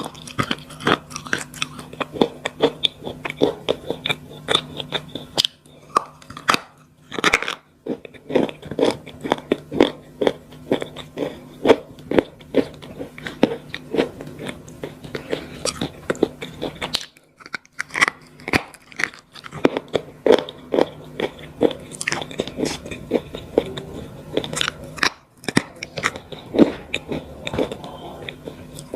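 Slate pencils being bitten and chewed close to the microphone: a dense run of sharp, dry crunches broken by a few short pauses, over a faint steady hum.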